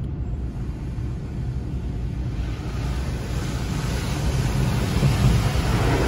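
Automatic car wash spraying water onto the car, heard from inside the cabin: a steady rushing over a low rumble, growing louder over the last few seconds.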